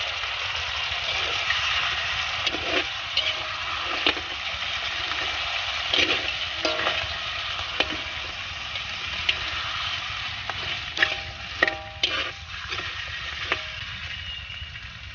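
Crabs and boiled eggs sizzling in hot oil and chilli paste in a wok, stirred with a spatula that scrapes and knocks against the wok and shells now and then.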